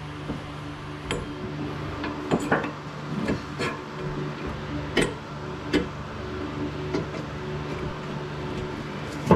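Irregular metal clinks and knocks of a wrench and a socket ratchet on its extension being set onto and worked on an idler pulley bolt, about a dozen over the span, over a steady low hum.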